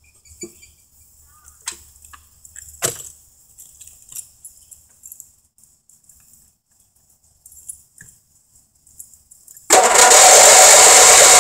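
A few light clicks and knocks, then near the end the Deutz-Allis riding mower's 12.5 hp engine is suddenly cranked over by its electric starter. It makes a loud, fast, steady churning that goes on without the engine catching.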